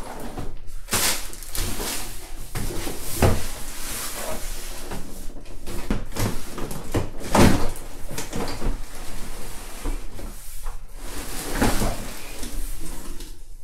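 Cardboard shipping box tipped onto its side and plastic-wrapped high chair parts pulled out of it: irregular knocks and bumps with cardboard scraping and plastic crinkling, the loudest knocks about a second in, a little after three seconds and around seven and a half seconds.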